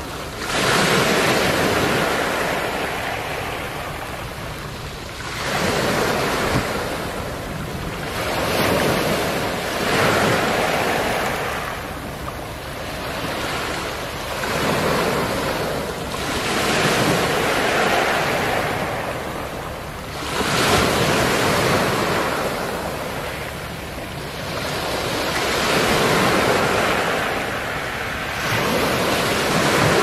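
Small waves breaking on a beach of smooth, round black pebbles, each surge washing up and drawing back so the pebbles roll and clatter. The surf swells and fades every two to four seconds.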